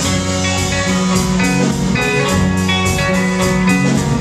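Band music between sung lines: guitar-led instrumental passage with bass and a steady beat.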